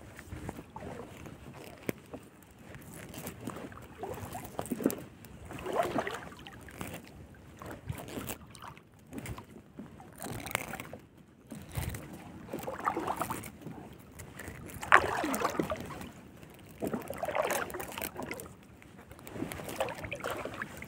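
Fine nylon fishing net being pulled by hand into a boat, with water dripping and sloshing off it and the net rustling against the hull, in irregular bursts.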